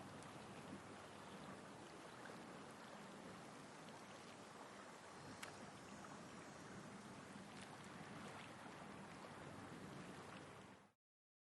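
Soft ocean waves rolling in with a light wind: a faint, steady wash of noise with a few small ticks, fading out quickly near the end into silence.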